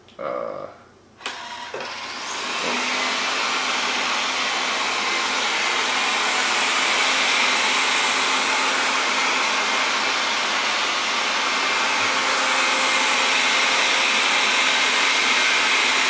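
Wyze robot vacuum starting a cleaning run: its motor spins up about two seconds in, then runs with a steady, even rushing whir at its strong suction setting.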